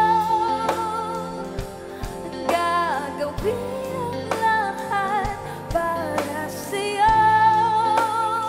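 A woman singing a song over a backing track with drums, holding long notes near the start and again near the end.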